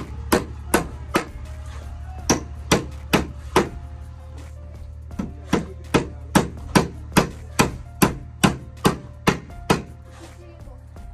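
Hammer driving nails into a wooden formwork board against a concrete-block wall: sharp blows at about two and a half a second, first a run of three, then a run of four, then a steady run of about a dozen from about five seconds in.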